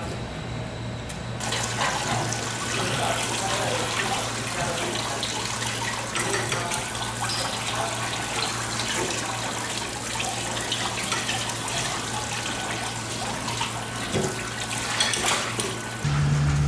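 Tap water running and splashing onto a wet wooden cutting board, starting about a second and a half in, with light knife taps and scrapes on the board as an eel is filleted.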